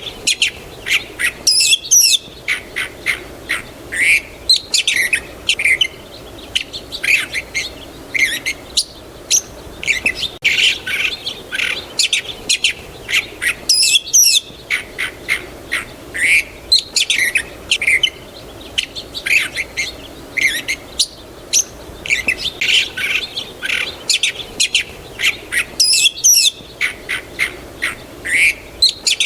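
Songbirds chirping and singing in a dense, continuous chorus of short high chirps and trills. The same stretch of song repeats about every twelve seconds, as a looped recording does.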